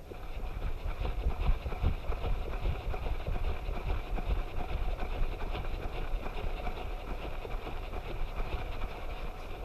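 Low rumble of wind buffeting and jostling on a GoPro strapped to a running dog's harness, with irregular thumps as the dog bounds through long grass.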